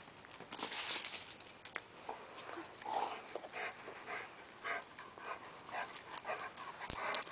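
A dog panting in a run of short, quick breaths as it comes up close.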